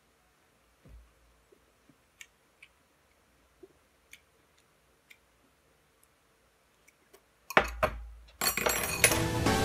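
Faint scattered clicks and taps of a metal fork on a dish. About seven and a half seconds in comes a loud thump, and loud music starts about a second later.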